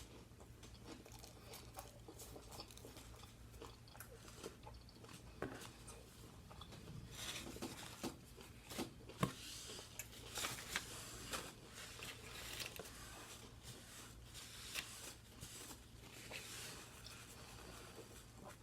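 A person chewing and biting into a bacon, egg and cheese sandwich close to the microphone: soft, irregular crunches and wet mouth clicks. The chewing grows busier and a little louder in the middle.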